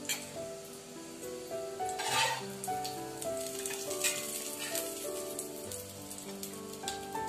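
Cooking oil sizzling and crackling on a hot tawa, with a louder burst of sizzle about two seconds in as oil meets the hot pan. Soft background music plays along.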